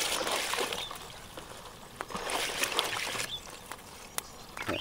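Muddy water sloshing in a plastic basin as hands stir and rinse live crabs, coming in two spells, with scattered sharp clicks.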